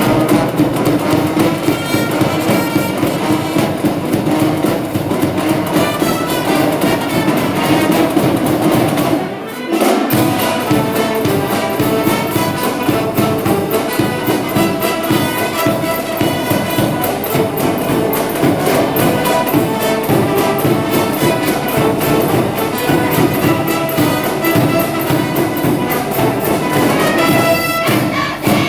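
High school wind band playing a baseball cheering tune, loud and full. About nine seconds in the music breaks off for a moment, then the next tune starts with a steady, driving beat.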